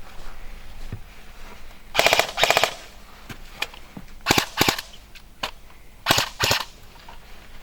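Airsoft gun firing short full-auto bursts of rapid clicks, six bursts in three close pairs about two seconds apart.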